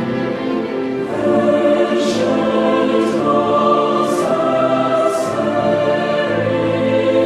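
Background music with choral, operatic-style singing over sustained chords.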